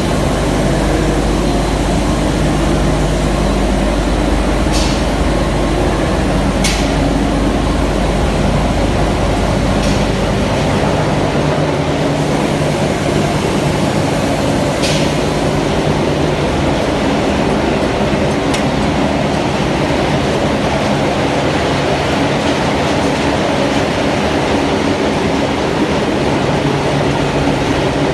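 Calcium carbonate ball mill plant running: a loud, steady industrial din from the ball mill, its classifiers and their electric motors and belt drives. A low hum drops away about eleven seconds in, and a few sharp clicks stand out over the noise.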